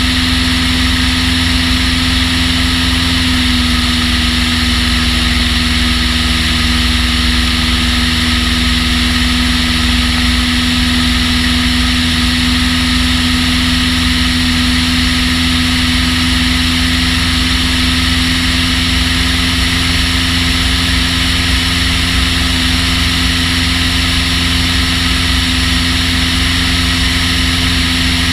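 Long-EZ's pusher engine and propeller running at a steady power setting, a constant drone picked up by a camera mounted on the airframe, with low wind rumble on the microphone.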